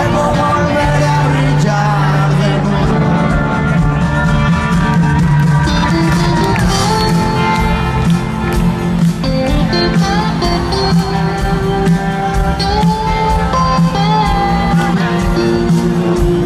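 Live rock band playing an instrumental passage, with a lead instrument carrying a melody of held and bending notes over bass and drums.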